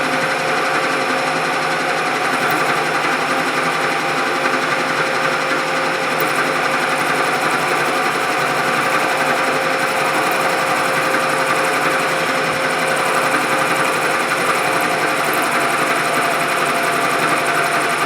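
Milling machine running steadily with its cutter in metal, a continuous mechanical whir with several steady tones.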